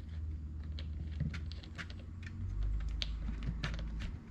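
Irregular small clicks and knocks of hands handling the plastic parts of an RC buggy, over a low rumble from handling.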